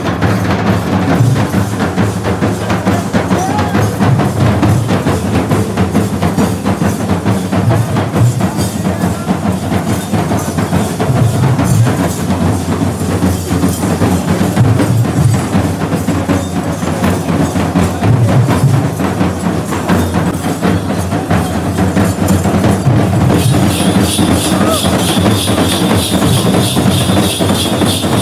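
Festival percussion ensemble playing a dense, fast drum rhythm with sharp wood-block-like strikes over deep drum beats. A high, steady ringing joins in near the end.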